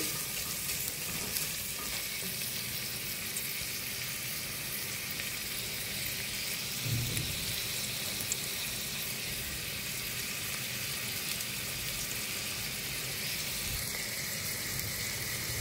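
Chopped onions sizzling in a stainless steel pot as they are lightly sautéed and stirred with a silicone spatula, a steady even hiss. The onions are cooked only until they soften and lose their crunch, not browned.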